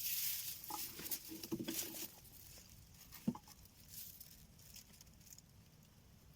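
Close rustling and crackling for about two seconds, like handling clothing, gear or reeds, with a short low tone in the middle of it; a single sharp click follows a little past three seconds in, then it goes quiet.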